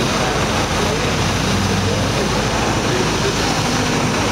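Steady hiss of pressurised water spraying over a military truck's wheels and underside during chemical decontamination, with the Iveco truck's diesel engine running slowly underneath.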